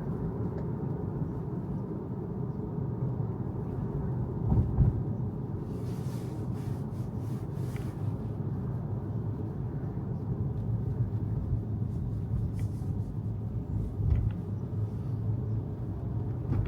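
Steady low road and tyre rumble inside the cabin of a Tesla electric car under way, with a brief louder bump about four to five seconds in.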